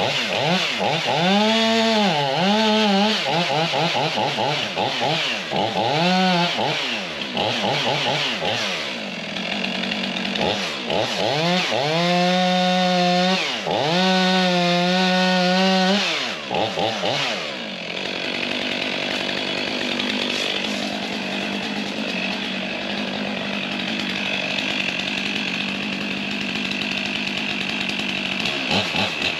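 Stihl MS500i fuel-injected two-stroke chainsaw revving up and down repeatedly, then held at full throttle for a few seconds near the middle as it cuts into a palm trunk. After that it runs lower and steadier.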